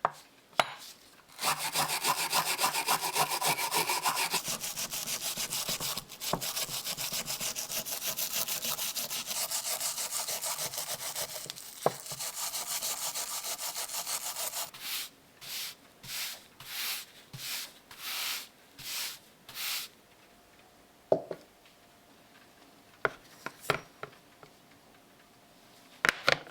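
Rasping, sawing-like strokes of a hand tool on a workpiece. A long run of rapid strokes is followed by about seven slower, separate strokes, then a few light taps near the end.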